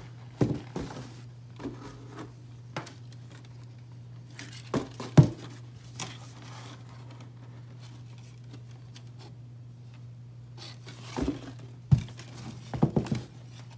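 Lizard-skin cowboy boots being handled and moved against their cardboard box and packing paper: scattered knocks, bumps and rustles, the loudest about five seconds in and a cluster near the end, over a steady low hum.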